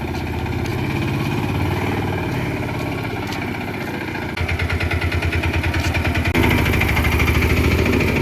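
A machine's engine running at a fast, steady chug, growing louder about four seconds in.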